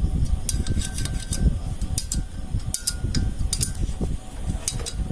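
Irregular metallic clicks and clinks of hand tools and metal parts on a motorcycle engine being reassembled, some in quick pairs with a brief ring, over a low steady rumble.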